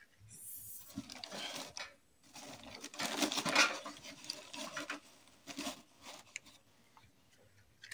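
Rustling and light knocks of hands working at the fuel door of a small metal cookstove, feeding in paper and kindling to light it. The loudest rustle comes about three and a half seconds in.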